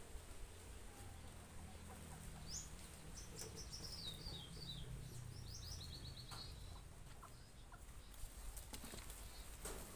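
A small bird singing: quick runs of short, high chirps that step down in pitch, from about two and a half to six seconds in, over a low steady rumble and a few light clicks.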